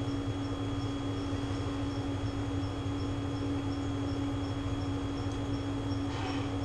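A steady electrical hum over a low rumble, with faint high ticks repeating evenly about three times a second.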